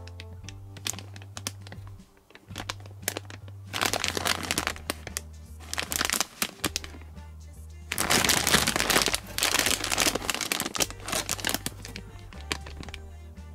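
Plastic blind-bag wrappers crinkling and tearing as toy packets are opened by hand, in irregular bursts with the loudest about eight to nine seconds in. Background music with a repeating bass line runs underneath.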